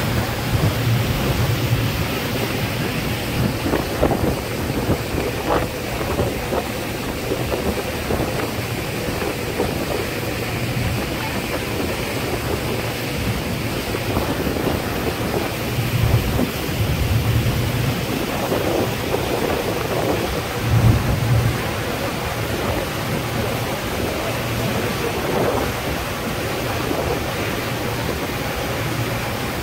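Wind buffeting the microphone on the deck of a moving boat, with low rumbling gusts every few seconds, over the rush of water along the hull and a faint steady engine hum.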